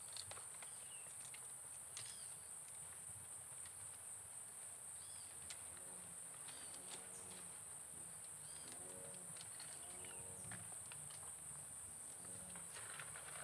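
Steady high-pitched drone of insects, with light snaps and rustles as ripe robusta coffee cherries are stripped from the branch by hand. Short animal calls come in twice around the middle.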